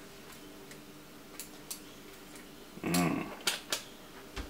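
A few light clicks and taps of small hard objects being handled, likely a multimeter and its probes being readied to test a PRAM battery, with a brief hum-like vocal sound about three seconds in and a soft knock near the end.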